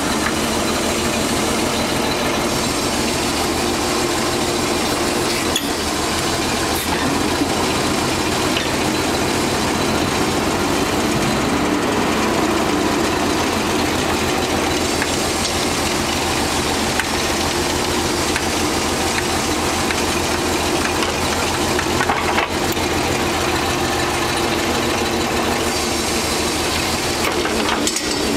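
Hyster S150A forklift's engine running steadily, its speed swelling briefly about halfway through.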